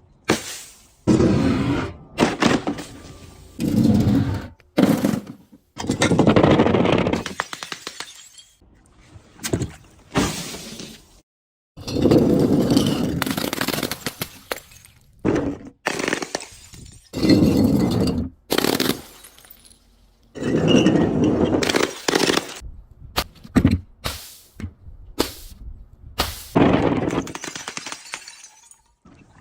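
Brittle things being crushed and broken, crunching in over a dozen separate bursts with short pauses between them.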